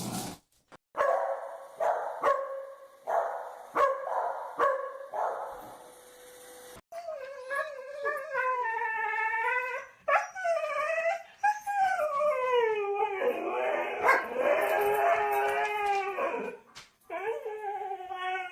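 A dog giving a run of short repeated barks, then breaking into long howls that waver up and down in pitch, with one more howl near the end.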